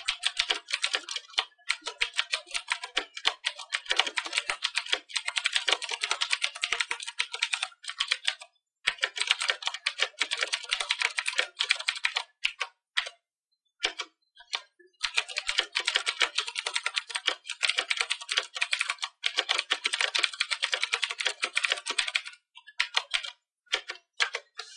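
Fast typing on a Das Keyboard Model S Professional mechanical keyboard: rapid, dense key clicks in long runs, broken by a few short pauses.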